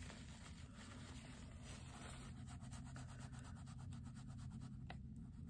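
Faint rubbing and fine scratching: a soft Sennelier oil pastel stick wiped clean on a paper towel, then stroked over paper to blend colours. One light tick near the end.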